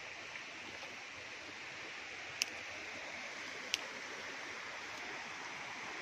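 Steady rush of flowing stream water, with two sharp clicks near the middle, just over a second apart.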